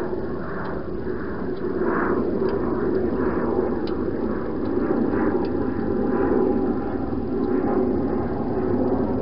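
A wild hedgehog eating from a bowl inside a plastic feeding box: soft, repeated chewing sounds about once or twice a second, over a steady low hum.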